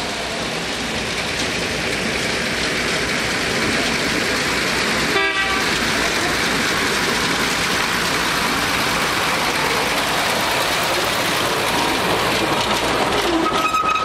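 Small narrow-gauge diesel locomotive passing with a passenger trolley: a steady engine and running noise. Its horn sounds one steady note near the end.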